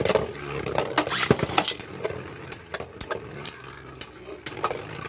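Two Beyblade spinning tops whirring in a clear plastic stadium, with repeated sharp clacks as they strike each other and the stadium.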